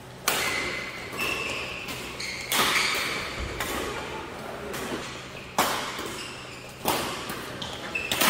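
Badminton rally: rackets striking the shuttlecock five times at uneven intervals, each crack echoing in a large hall. Brief high squeaks of shoes on the court floor come between the hits.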